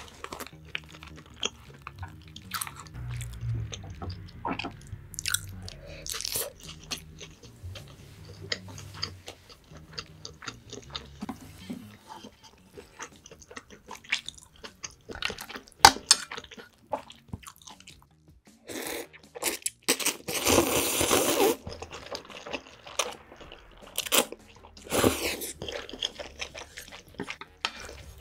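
Close-miked eating: chewing and mouth smacks over sushi, with light chopstick clicks. About two-thirds of the way through come long loud slurps of spicy instant ramen noodles, and a shorter slurp follows.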